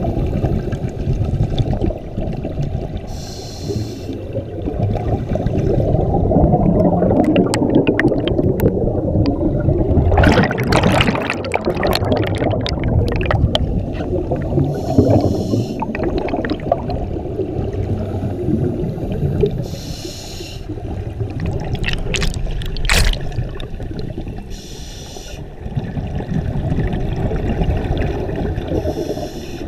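Muffled underwater sound of scuba divers breathing through their regulators: a steady low rumble of exhaust bubbles that swells in bursts, with a brighter hiss now and then and a few sharp clicks.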